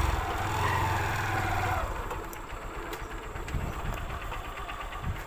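A motor running with a steady hum that fades about two seconds in, leaving a fainter low rumble with a few light ticks.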